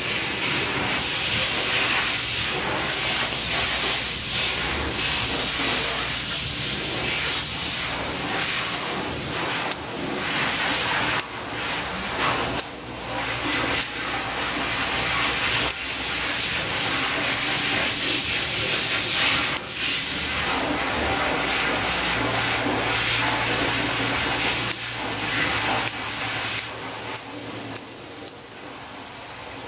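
Steady, loud hiss of rushing air, with scattered sharp clicks and knocks. A low hum joins in the second half, and the hiss eases off near the end.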